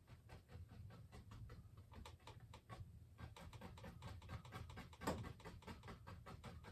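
Faint, rapid tapping of a fan brush loaded with oil paint dabbed down against the canvas, several taps a second, with one firmer dab about five seconds in.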